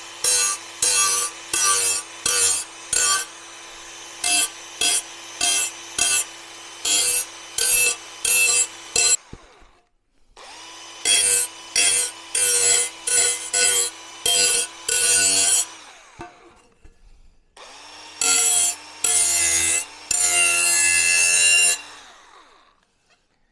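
Small handheld power tool running in three spells, its motor spinning up and winding down each time, with repeated rasping strokes, about two or three a second, as it takes the burrs off the cut edges of a metal plate.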